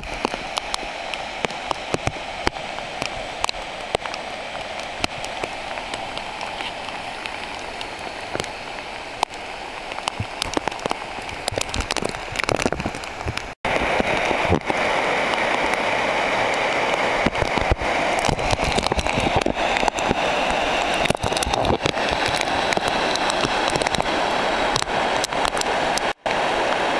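Swollen river in flood rushing past in a steady wash of water noise, with rain and drips crackling over it. The rushing grows louder after a cut about halfway through, where the floodwater churns under a bridge.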